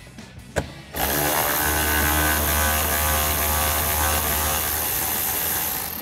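Milwaukee cordless electric ratchet running, spinning out a 7 mm bolt. The motor starts suddenly about a second in, runs steadily for about five seconds and stops just before the end.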